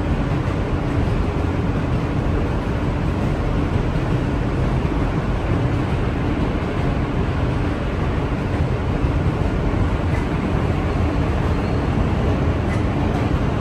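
Interior running noise of an R160 subway car in motion, a steady rumble with a faint steady hum.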